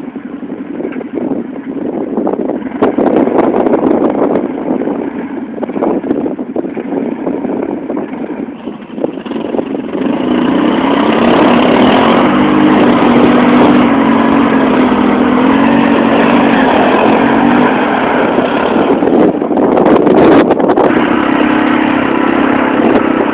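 Quad bike (ATV) engine. For the first ten seconds it is heard further off, with wind buffeting the microphone. From about ten seconds in it is loud and close, its pitch rising and falling as the throttle is worked.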